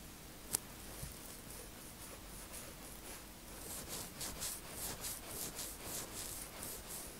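Fingertips rubbing and scratching over cornrow braids on the scalp, close to the microphone: faint rustling at first, then from about halfway in a run of quick scratchy swishes, about three a second. A single sharp click about half a second in.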